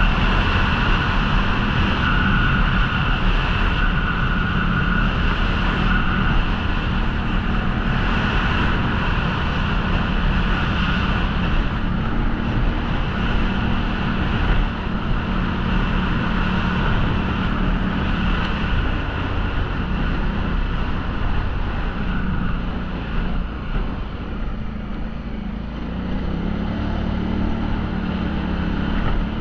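ATV engine running steadily while riding, its pitch shifting in small steps, sagging about three-quarters of the way through and then climbing again.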